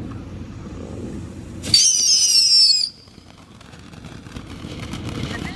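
Ground firework fountain spraying sparks. Partway through it lets out a loud shrill whistle that wavers and falls slightly in pitch for about a second, then cuts off suddenly; a second whistle starts right at the end.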